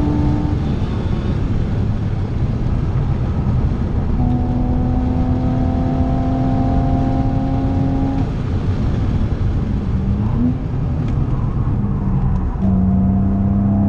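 BMW Z4 E85 3.0i's M54 inline-six running at speed, heard from inside the cabin over heavy road and tyre noise. Its note holds a nearly steady pitch for a few seconds at a time, drops away under the road noise in between, and rises briefly about ten seconds in.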